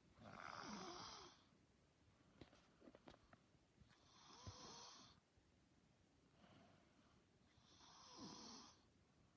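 A sleeper snoring: three faint snores, each about a second long and roughly four seconds apart.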